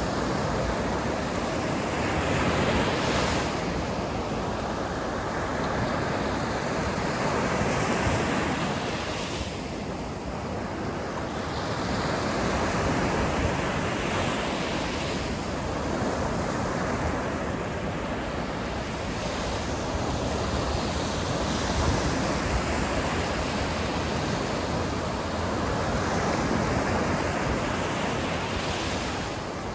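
Sea waves breaking and washing onto the shore in a continuous surf, swelling and easing every few seconds.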